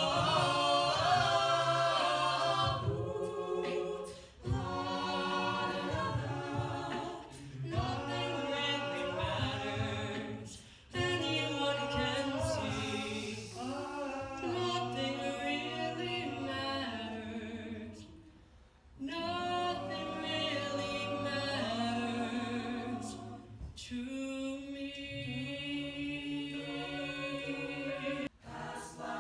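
Mixed a cappella vocal group of men and women singing in harmony, with a low sustained bass part beneath the upper voices. The singing comes in phrases, with a short break about two-thirds through.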